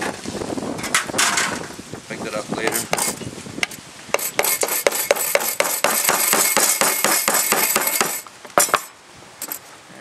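Hammer driving a nail into a pine board: a quick, even run of strikes, about five a second, for some four seconds, then two more blows.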